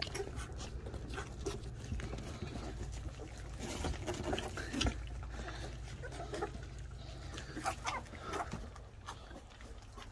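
A litter of young Labrador retriever puppies eating mushy food from stainless steel feeding bowls: irregular wet lapping, slurping and mouth smacks.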